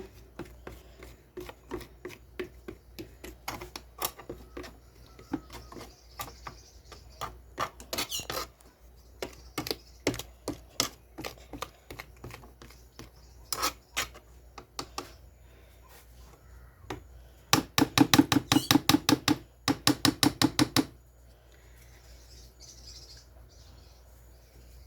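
Kitchen utensils clicking and knocking against a mixing bowl, with the motor off. About 18 seconds in comes a loud, rapid run of clicks in two bursts, together about three seconds long.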